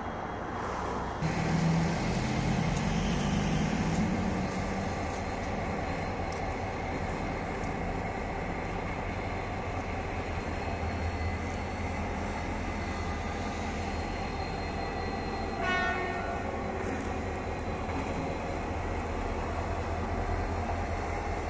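TCDD DE 33000-class diesel locomotive engine (EMD two-stroke V16) running as the locomotive moves slowly. It throttles up about a second in and eases back after a few seconds to a steady low drone. A brief high tone sounds once, about sixteen seconds in.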